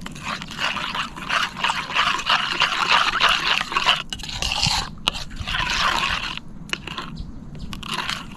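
Food sizzling and crackling in a pot over the fire. The crackling breaks off briefly about four seconds in, and again near the end.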